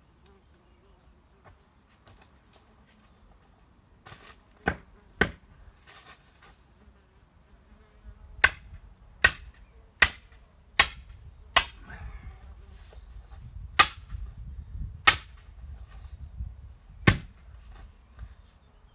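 A hand tool chopping at a tree stump and its roots: about ten sharp, unevenly spaced blows, two about five seconds in and the rest in a run from about eight seconds on.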